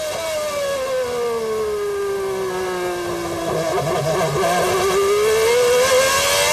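Onboard sound of a McLaren-Honda V12 Formula 1 engine at racing speed. The revs fall steadily for a few seconds as the car slows into a corner, turn ragged for a moment near the middle, then climb again as it accelerates out.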